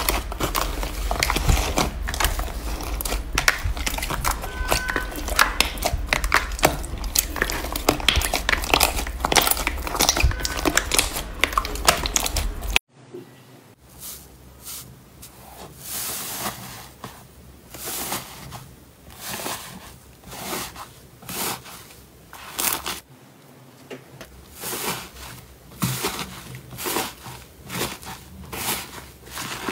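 Hands squishing and kneading slime. For the first half, a pale slime mixed with foam beads gives dense crackling pops over a low rumble. Then, about thirteen seconds in, it cuts to softer, quieter squishes about once a second with scattered crackles as a green slime with a dried crust is pressed and broken open.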